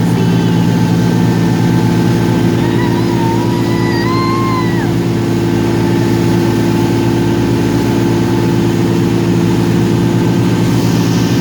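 Passenger ferry's engines running steadily on board, a loud, even low drone.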